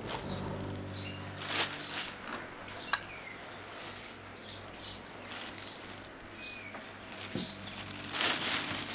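Thin plastic bag crinkling as it is handled, in short bursts about a second and a half in and again near the end, while onion rings and flour are put into it for tossing.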